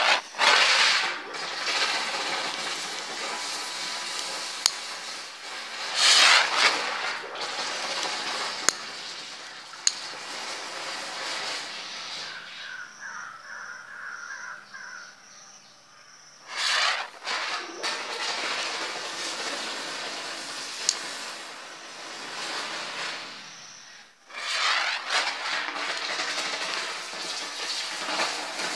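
Lit fireworks hissing and fizzing on the water, one after another: each flares up suddenly into a loud hiss that slowly dies down, about four times, with a few sharp pops.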